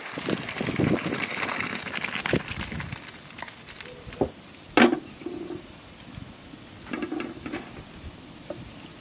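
Boiled rice and its hot cooking water poured from a pot into a metal colander in a steel bowl, splashing and rushing for about three seconds. Then one sharp metal clank, followed by a few lighter clinks of the metal pots and colander.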